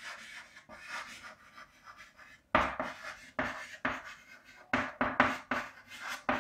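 Handwriting: after a faint first couple of seconds, a series of short, scratchy writing strokes starts about two and a half seconds in.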